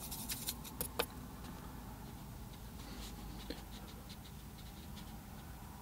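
A few sharp clicks of a paintbrush against a plastic watercolour palette in the first second, then faint light scratching of a brush dabbing paint onto watercolour paper.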